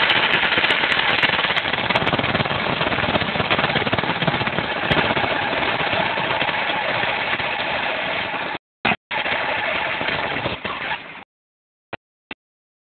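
Oxyhydrogen (HHO) torch flame hissing steadily against a concrete floor. It breaks off briefly just before 9 seconds and stops about 11 seconds in, followed by two faint clicks.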